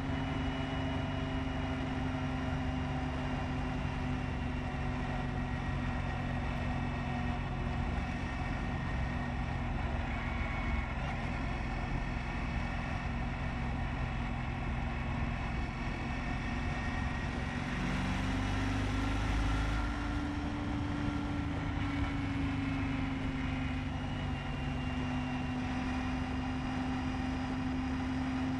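Honda ST1300 Pan European's V4 engine running steadily at motorway cruising speed over a low wind and road rumble. The engine note rises a little about two-thirds of the way through and settles again.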